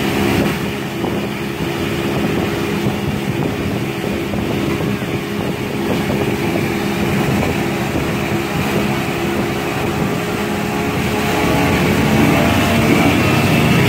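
Boat's outboard motor running steadily at cruising speed, with the rush of the wake and wind over the boat.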